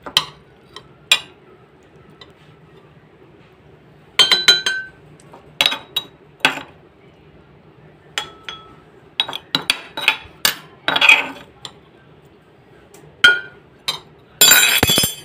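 Metal spoon clinking and scraping against a white mortar as the crushed mango-mint mixture is scooped out, in scattered sharp clinks with a short ring, and a longer, loud scrape near the end.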